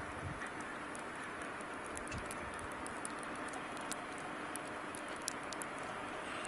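Distant 2TE116 diesel locomotive approaching, a faint steady drone of its engines, with scattered light sharp ticks over it.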